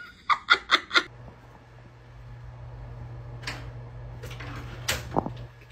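A cat chattering at birds: four quick high chirps in the first second. After that comes a steady low hum.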